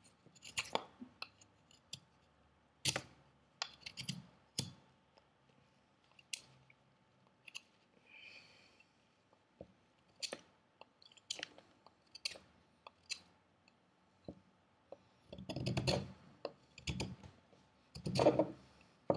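Fixed-blade D2 steel knife cutting and shaving dry mahogany, a hardwood: irregular sharp cutting and crackling strokes, with louder cuts near the end.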